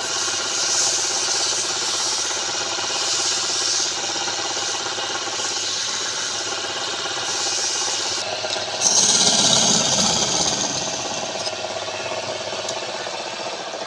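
Wood lathe running steadily, with a tool rubbing against the spinning wood in several passes. The loudest pass starts about nine seconds in.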